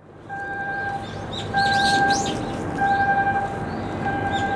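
An electronic warning alarm beeping evenly, one held beep about every second and a quarter, with small birds chirping over a steady background hum.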